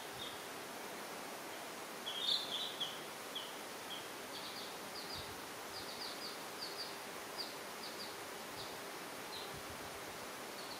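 Young chicks peeping: short, high chirps scattered throughout, several in quick succession about two seconds in, over a steady background hiss.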